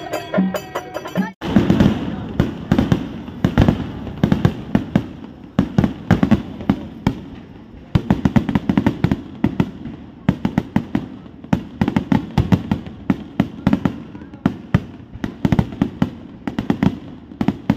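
Kerala feast fireworks (vedikkettu): a fast, unbroken barrage of loud bangs several to the second, each with a booming rumble, starting about a second and a half in.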